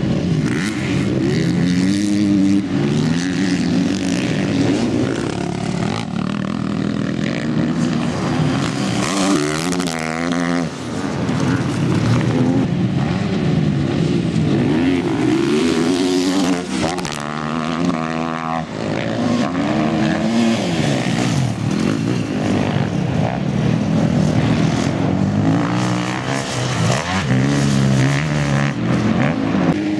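Motocross bike engines revving hard, the pitch climbing and dropping again and again as the riders shift gears and roll on and off the throttle.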